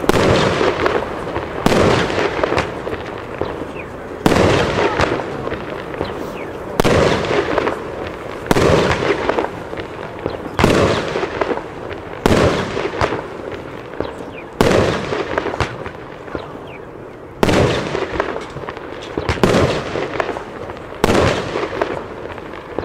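Argento Orchid consumer firework battery firing its shots in sequence: about a dozen sharp bangs, one every one and a half to two seconds, each trailing off before the next.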